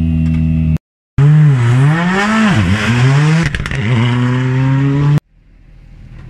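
Hyundai i20 R5 rally car's 1.6-litre turbocharged four-cylinder engine held at high revs, then, after a short break, running hard with the revs dipping and climbing again several times. It cuts off abruptly about five seconds in, leaving only low background noise.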